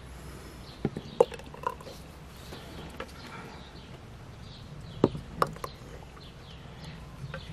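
A ladle clinking against the cooking pot and the glass jar as hot soup is ladled into the jar: a few sharp clinks about a second in and again about five seconds in.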